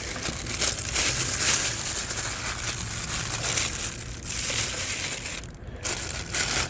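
Plastic packaging crinkling and crackling as it is pulled off and handled, with a short lull about five and a half seconds in.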